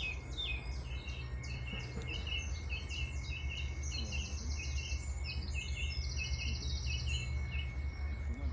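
Birds chirping, a few short repeated chirps a second, with two brief rapid trills, over a steady low rumble of background noise.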